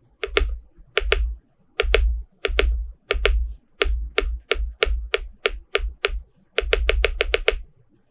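KBD67 Lite R2 mechanical keyboard with lubed Cobalt POM linear switches, struck one key at a time. Each stroke is a pair of sharp clicks for the press and the return, with a low thump, about two strokes a second, then a quicker run of several keystrokes near the end.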